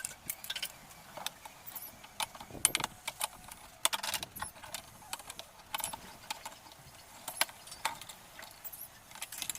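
Small metal parts and tools clinking and clicking irregularly as a washing machine's mechanism is handled during assembly.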